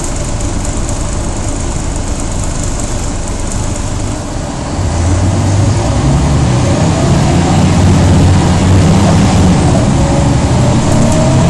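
Mercedes-Benz O405G articulated bus heard from inside the cabin: the diesel engine runs steadily, then picks up and grows louder about four and a half seconds in as the bus pulls harder. Through the second half a faint whine from the loud ZF automatic gearbox rises slowly in pitch.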